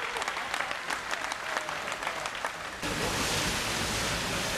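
Applause, many hands clapping quickly, which cuts off abruptly about three seconds in to a steady rushing noise.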